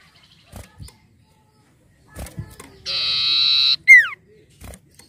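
Common iora (cipoh) calling: a harsh buzzing note about a second long, beginning about three seconds in, followed at once by a short loud whistle sliding down in pitch. A few faint clicks come before it.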